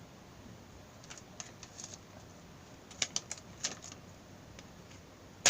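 Swiss Army knife's small blade being stabbed into a target: faint scattered clicks and taps, a cluster of sharper clicks about three seconds in, and one sharper click near the end.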